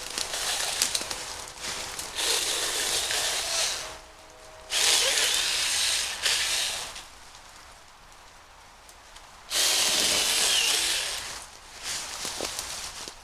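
Small battery-powered mini chainsaw cutting in several short bursts of one to two seconds each, with pauses between them.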